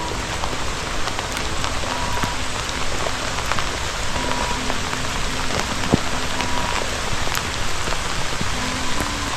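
Steady rain falling, with frequent sharp ticks of individual drops.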